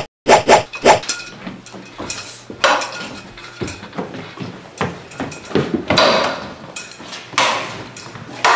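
A staged fight: a quick run of very loud sharp hits in the first second, then scattered metallic clanks, knocks and clatter.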